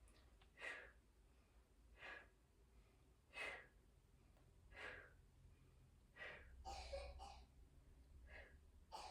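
A woman breathing steadily through a held side plank, faint short breaths about every second and a half, with one longer breath in the second half.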